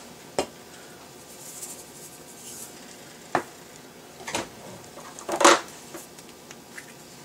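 A silicone whisk stirring gravy in a cast-iron skillet: soft stirring with four sharp taps of the whisk against the pan, the loudest late on.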